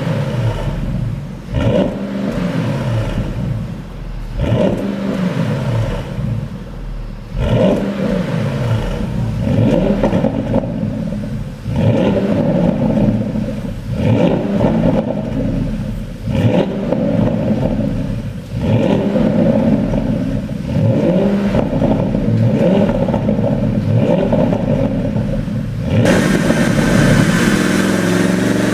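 Porsche 971 Panamera GTS twin-turbo V8 revved again and again, about every two seconds, each rev falling off with exhaust pops and crackles from a pops-and-bangs tune. Near the end the revving gives way to a steadier run.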